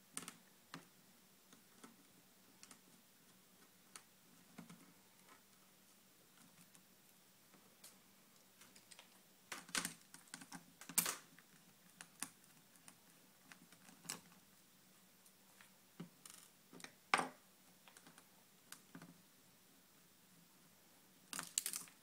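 Scattered small clicks and taps of a mini screwdriver and small screws on the plastic lid of a netbook as the LCD frame screws are taken out. The clicks are irregular, with a few louder clusters partway through and near the end, over a faint steady hum.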